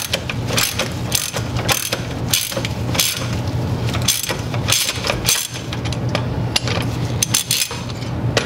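Ratchet wrench clicking in short repeated bursts, about two to three a second, as it turns a 27 mm socket on extensions to loosen the oil filter housing of a Mustang GT350. A steady low hum runs underneath.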